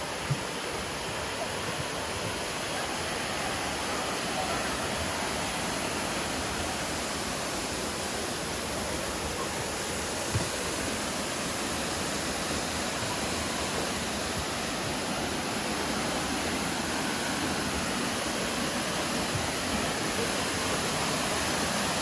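Steady rush of running water, slowly growing louder, with two brief clicks, one just after the start and one about ten seconds in.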